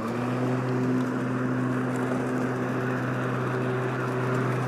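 Powersmart 80-volt cordless 26-inch twin-blade lawn mower running at full blade speed in mulching mode while cutting grass: a steady electric motor hum at one even pitch over a whooshing rush.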